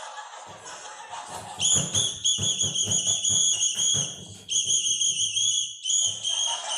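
Whistle blown in three long warbling blasts. A quick run of knocks sounds beneath the first blast.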